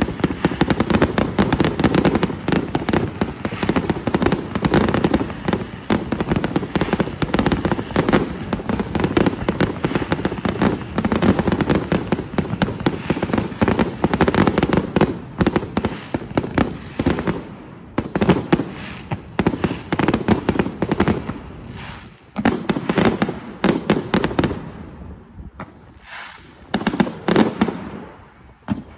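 Fireworks finale: aerial shells bursting in a rapid, dense barrage of bangs, thinning after about two-thirds of the way to scattered separate bursts near the end.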